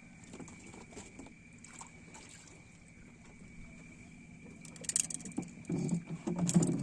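Small fishing boat's motor running steadily with a low hum and a faint high whine, a sharp click about five seconds in, and louder bumps near the end.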